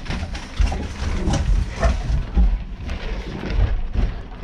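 Footsteps and handling noise from an action camera carried while walking: a run of irregular low thuds and knocks.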